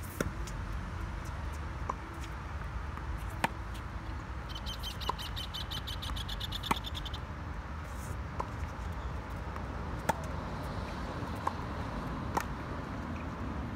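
Tennis ball being struck by racquets and bouncing on a hard court during a baseline rally: single sharp pops about every second and a half. In the middle of the rally there is a rapid, high ticking trill lasting about three seconds.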